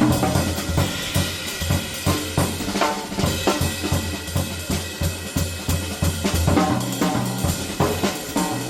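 Jazz drum kit played busily and loud, with snare, bass drum, hi-hat and cymbals, over steady low notes underneath.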